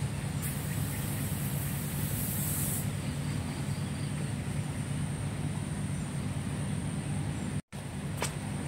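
Steady rushing of river water, with a brief hiss surge in the first few seconds; the sound cuts out for an instant near the end.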